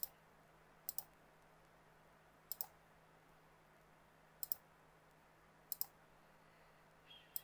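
Computer mouse button clicking six times, a second or two apart, each click a quick pair of sharp ticks.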